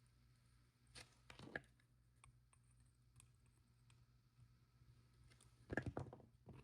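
Faint, sparse clicks of small metal jewelry parts (jump rings and charms) handled with pliers while charms are attached down the line: a few clicks about a second in and a short cluster near the end.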